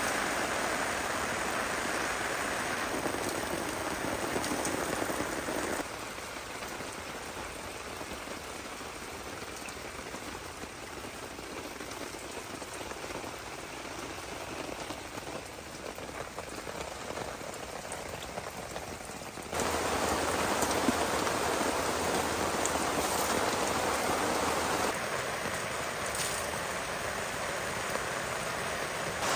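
Heavy rain falling, a steady hiss with scattered drop ticks. It becomes abruptly quieter about six seconds in and abruptly louder again about twenty seconds in.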